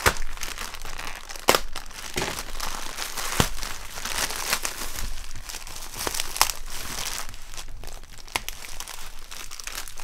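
Plastic packaging (a courier mailer and bubble wrap) being torn and crumpled by hand: continuous crinkling and rustling with frequent sharp crackles and snaps, the loudest at the very start and about a second and a half in.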